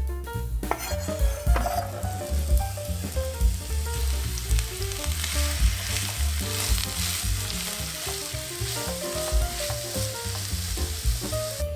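Chopped onion hits hot vegetable oil in a nonstick frying pan about a second in and then sizzles steadily while being stirred with a wooden spatula. Soft background music plays underneath.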